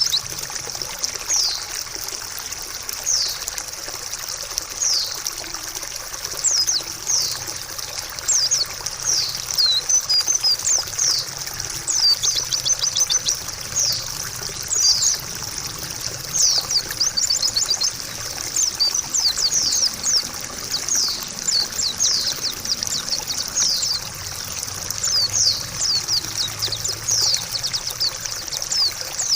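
Trickling water with a white-eye (pleci) singing over it: many quick, high, downward-sliding chirps, some in rapid runs.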